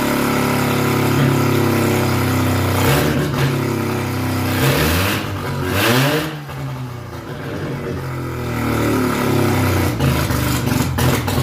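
Rotary engine running on a test stand and revved by hand, its pitch rising and falling a few times, with a brief sag near the middle. It is on a free, untuned carburetor that gives trouble.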